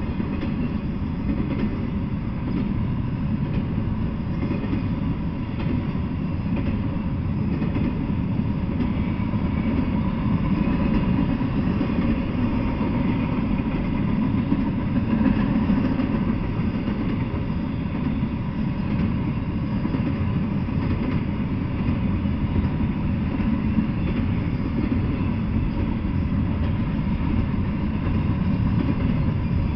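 Double-stack intermodal freight train passing, its container wagons' wheels on the rails making a steady low rumble.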